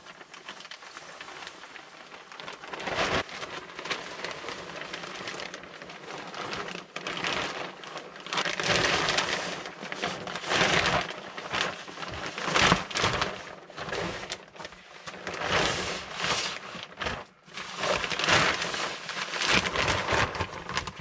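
Sheet of Everbilt Super-6 6-mil polyethylene vapour barrier crinkling and rustling as it is unrolled and pulled into place by hand, in irregular crackling swells that grow louder partway through.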